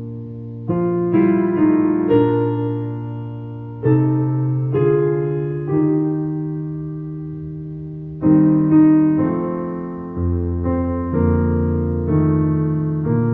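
Slow, soft solo piano music: single notes and chords struck about once a second, each left to ring and fade away.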